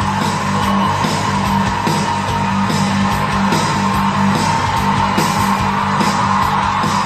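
Music with guitar and a steady beat, played loudly through a pair of bookshelf speakers driven by an Aiyima A07 MAX TPA3255 class-D amplifier.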